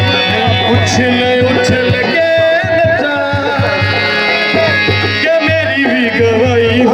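Music with a steady drum beat under a held melodic line.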